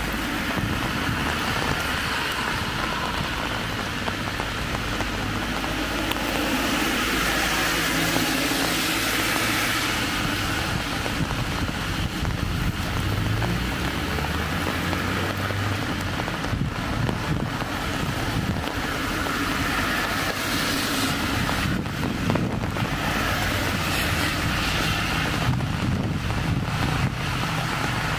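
Light rain and street traffic on wet roads: a steady rain hiss, with the swish of car tyres on wet asphalt swelling and fading a couple of times over a low traffic rumble.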